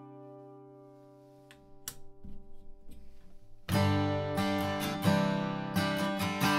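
Gibson J-45 acoustic guitar: a strummed chord rings out and fades, with a couple of light clicks and faint handling noise. Just past halfway, picked chord strumming starts again, loud and in repeated strokes.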